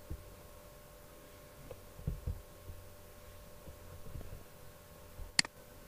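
Faint room hum with a couple of soft low thumps about two seconds in, then one sharp click near the end.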